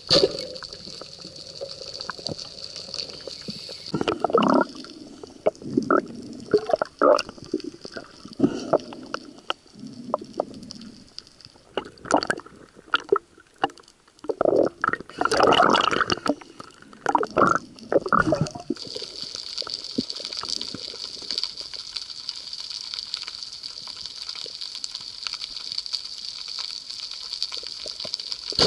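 Underwater sound of spearfishing: a sharp speargun shot at the start, then a long stretch of loud irregular knocks, scrapes and water rushing as a speared fish thrashes on the shaft and is handled. It settles to a steady underwater hiss, and a second sharp shot comes right at the end.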